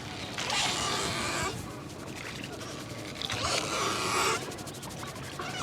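Head massage: hands rubbing briskly over a customer's hair and scalp, in two bursts about a second long each.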